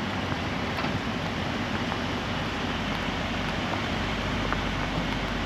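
A vehicle engine running steadily under an even hiss.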